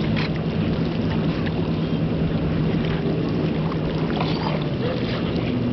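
Steady low engine drone with a hiss of wind and water over it.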